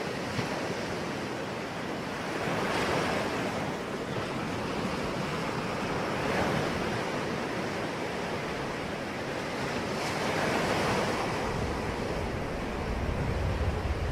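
Ocean waves breaking and washing in, swelling about every three to four seconds. A low rumble builds near the end.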